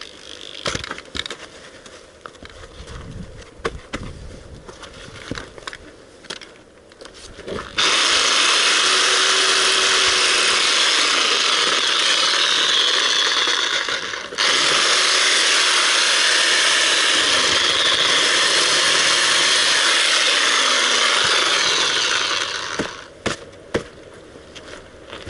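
Corded reciprocating saw cutting into an animal's skull, running loud and steady in two runs: it starts about a third of the way in, stops briefly about halfway, then runs again until shortly before the end. Before it starts there are a few knocks and handling sounds.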